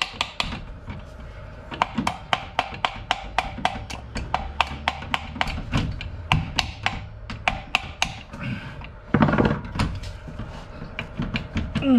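Metal clicking as locking pliers clamped on a gear inside a core drill's gear housing are worked back and forth to pull the gear out: a steady run of sharp clicks, about three or four a second, then a louder scraping rattle about nine seconds in.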